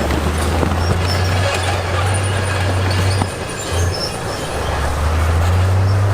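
Heavy earthmoving machinery at work: a diesel engine running with a steady low hum under continuous metallic grinding and clanking. The sound drops a little in level for a second or two past the middle.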